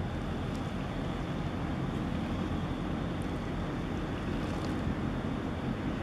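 Steady low rumble of wind buffeting the microphone, mixed with the wash of harbour water against the quay. There are no distinct events, only an even noise that stays at the same level throughout.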